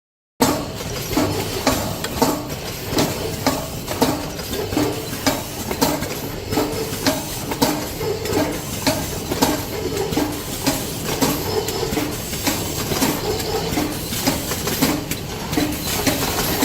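Automatic packaging machine for laundry detergent capsules running in a steady cycle: repeated mechanical clatter and sharp clicks, with a regular beat about every 0.7 s. It starts abruptly about half a second in.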